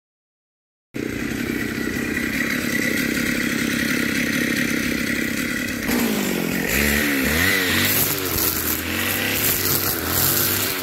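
Stihl FS550 brushcutter's two-stroke engine running steadily, cutting in abruptly about a second in. From about six seconds in it is revved up and down, with a harsh hiss as the square nylon trimmer line tears into weeds and brush.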